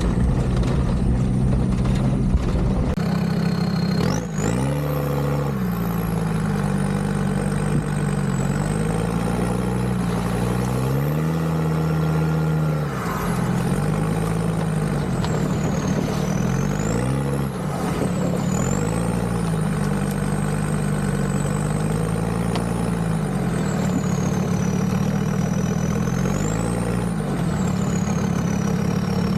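Small quadcopter camera drone flying close by, with the whine of its motors and the buzz of its propellers rising and falling in pitch together as it climbs and manoeuvres. The propellers spin up sharply about four seconds in.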